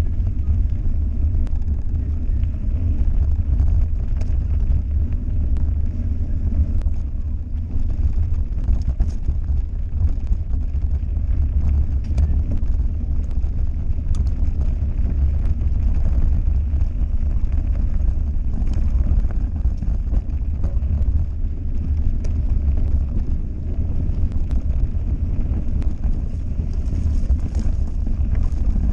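Mountain bike riding a dirt singletrack, heard from a camera on the bike or rider: wind buffeting the microphone in a steady low rumble, with tyres running over dirt and loose stones and small clicks and rattles from the bike.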